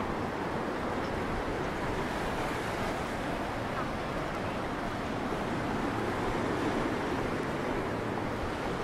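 Sea surf washing steadily over a flat rocky shoreline, an even rushing with no single breaks standing out.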